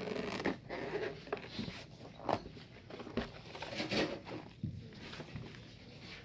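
Zippered hard-shell gimbal case being unzipped and opened by hand: a run of short rasping pulls and light knocks about a second apart as the lid is worked open.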